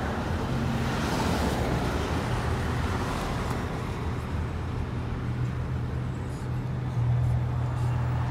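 Car driving along a city street: a steady low engine hum under road and traffic noise, with a brief swell of noise about a second in.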